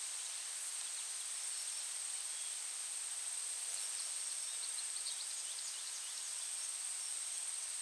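Steady outdoor insect ambience, a high constant hiss and tone, with a few faint short chirps around the middle.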